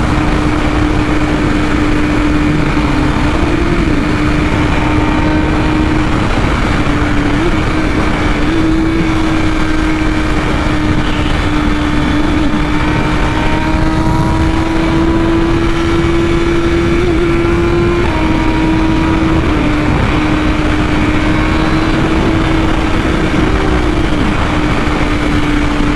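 BMW S1000RR's inline-four engine held at high, steady revs at speed, its note staying nearly level with a few small dips and rises, under heavy wind rush.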